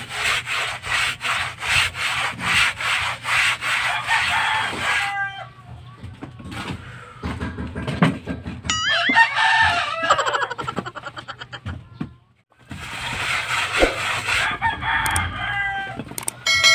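A plastering trowel scraping cement plaster across a rough concrete wall in quick, regular strokes, which pause in the middle and start again. A rooster crows once midway, and a metallic clang rings out at the very end.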